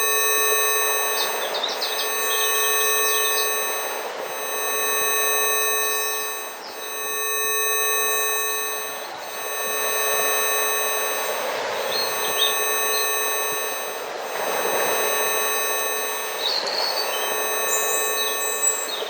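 Several steady pure tones held at once, a Rife healing-frequency track, over a soft rushing noise that swells and fades about every four seconds. Bird chirps come in a few times, about two seconds in, near the middle and near the end.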